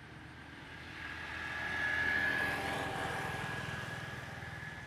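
A passing engine: a steady hum with a high whine that swells to a peak about two seconds in and then fades away.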